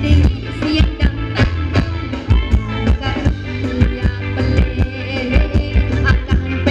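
Live Thai ramwong band music: a steady drum beat over a strong bass line, with guitar and keyboard-like melody.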